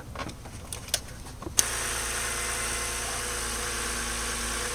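A few light clicks of handling under the hood. Then, about a second and a half in, the 2008 BMW 328i's inline-six engine comes in idling steadily.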